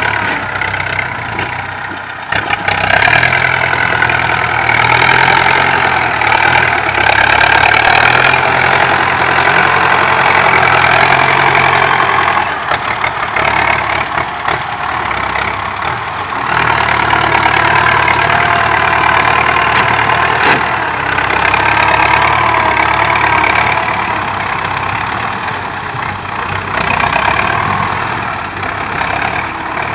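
A farm tractor's diesel engine runs under load as it pushes soil with a front blade and drags a disc harrow. The engine note swells about two seconds in, eases back around halfway, then picks up again.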